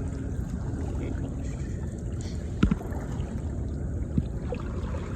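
Steady low rumble of water and wind around a kayak at sea. A sharp knock comes about two and a half seconds in, and a lighter one follows about a second and a half later.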